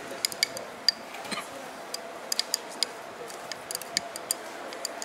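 Light, irregular clicking and tapping of a metal rod against a small glass bowl as coloured sand is packed inside to build a sand-art picture. About twenty quick taps, each with a brief glassy ring.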